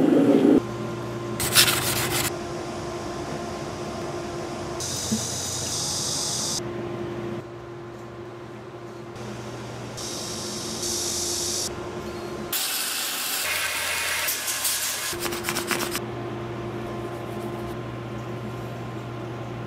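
Knife-making workshop sounds across several cuts: a brief loud burst as a hot blade is plunged into an oil quench tank at the start. After that, a steady machine hum with intermittent rubbing and scraping noises.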